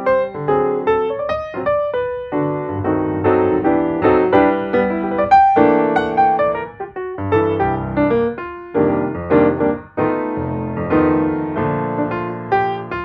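Background piano music: a light melody of short, separate notes.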